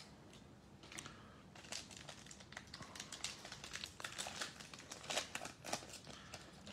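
Wrapper of an Illusions basketball card pack crinkling and tearing as it is ripped open by hand, a dense run of crackles from about a second in.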